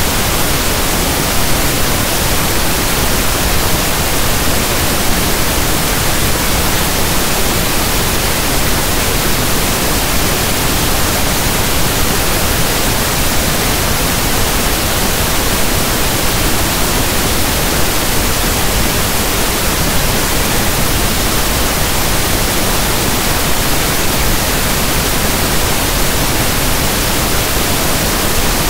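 Steady pink noise: soft static like a radio not tuned to a station, even and unchanging.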